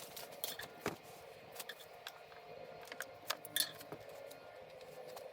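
Irregular small clicks, taps and light rustles of hands working adhesive foam sealing tape onto a plastic heater box, over a faint steady hum.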